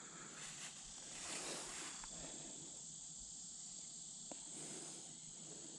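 Faint outdoor ambience: a steady, high-pitched insect chorus, with a brief soft rustle about a second and a half in.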